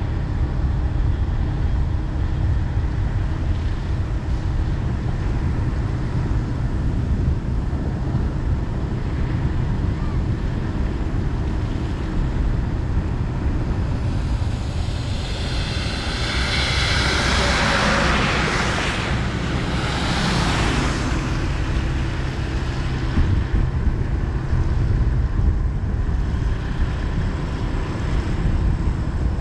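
Steady low rumble of road and wind noise from a vehicle driving. About halfway through, a rushing hiss swells up and dies away again over roughly six seconds.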